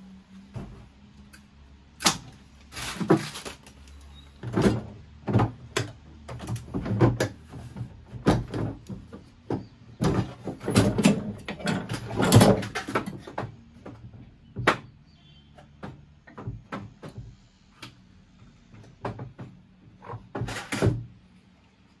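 Irregular knocks, clunks and scrapes of objects being handled, busiest from about four to thirteen seconds in, then lighter scattered clicks and one more clunk near the end.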